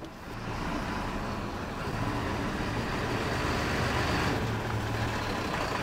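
Lorry's diesel engine running at low revs as the truck moves off slowly, growing louder over the first second and then holding steady.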